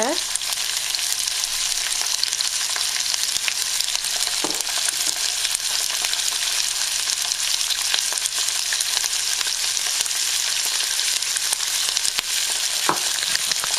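Green beans sizzling in hot oil in a wok, a steady frying hiss, stirred near the end.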